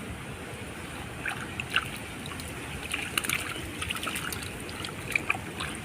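Water trickling and lightly splashing in scattered short drips, over a steady low rushing noise.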